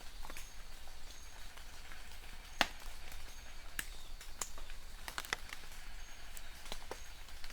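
Rain falling, with scattered drops ticking and tapping irregularly over a light hiss; one tap a little after two seconds in is louder than the rest. A faint high chirp repeats about once a second.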